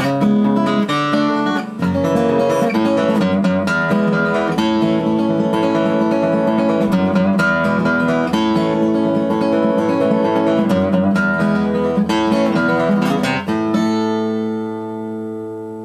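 Gibson acoustic guitar being fingerpicked and strummed, a run of chords with many note attacks. A little before the end the playing stops and a last chord is left ringing, fading away.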